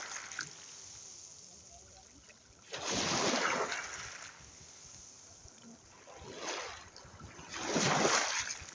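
Waves breaking and washing onto the shore in separate surges: one about three seconds in, a smaller one a little after six seconds, and another near the end, with a low wash of water between them.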